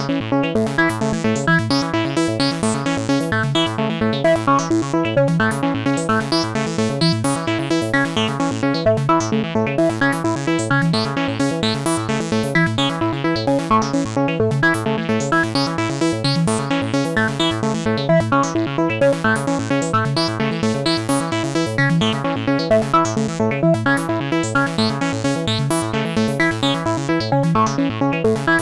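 Synthesized electronic ringtone tune played on FL Studio's Sytrus software synthesizer: a fast, looping pattern of short synth notes, even in loudness throughout.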